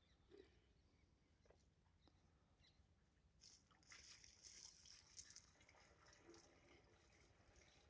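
Near silence, with faint splashing of water poured from a bucket into a tractor-driven pump's pipe to prime it, lasting about two seconds near the middle.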